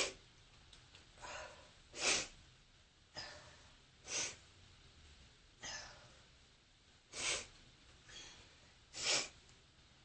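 Short, noisy breaths in and out, in pairs about every two to three seconds: the heavy breathing of a person with bronchitis in the lull between sneezes.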